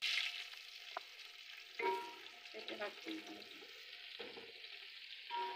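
Chopped onions frying in hot ghee in an aluminium pot, a steady sizzle that settles soon after they go in. A wooden spatula stirs them, scraping the pot about once a second.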